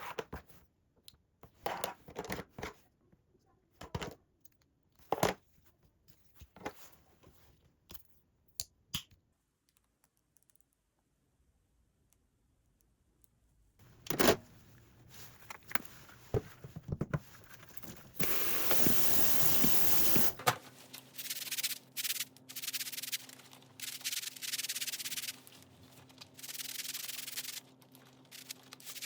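Objects handled by hand, with a scatter of separate clicks and knocks. After a pause, there are longer spells of rubbing noise, the longest and loudest about two-thirds of the way in, and a low steady hum comes in under them.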